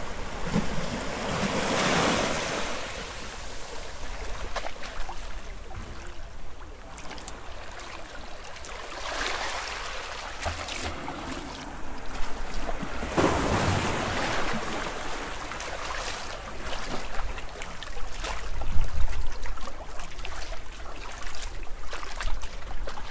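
Ocean surf: rushing, hissing waves that swell and fade in surges several seconds apart, over a steady low rumble.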